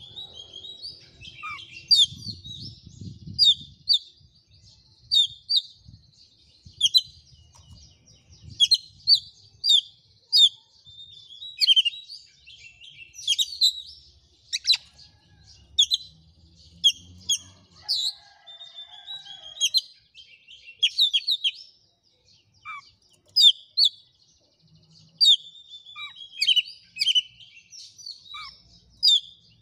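Oriental magpie-robin in full song: a fast, varied run of sharp chirps and whistled notes, many short strokes in quick succession with brief pauses between phrases.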